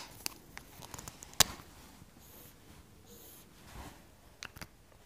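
A marker pen on a whiteboard. There are a few sharp clicks and taps, the loudest about a second and a half in, and two brief faint scratchy strokes around two and three seconds in as a double line is drawn.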